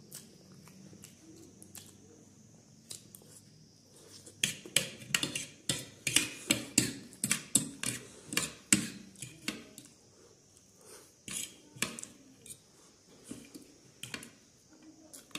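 Metal fork and spoon clinking and scraping against a ceramic plate while the last noodles are gathered up. The clinks come in a quick run from about four seconds in, then turn sparser.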